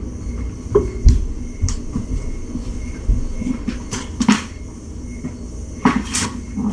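Irregular knocks and clicks, about half a dozen, the loudest a pair about four seconds in and another near the end, over a steady background hum.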